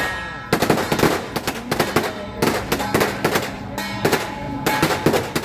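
Strings of firecrackers crackling in dense rapid runs, with brief lulls between runs, over music with a held tone.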